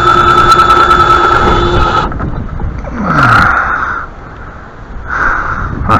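A small motor runs steadily with a fine ticking and cuts off about two seconds in. It then gives two shorter bursts, the first winding down in pitch, and a brief third one near the end.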